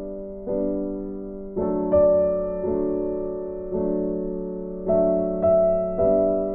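Background piano music: gentle chords struck every half second to a second, each note fading away.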